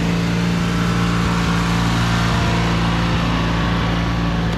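Small riding lawn mower (garden tractor) engines running steadily as the tractors drive around.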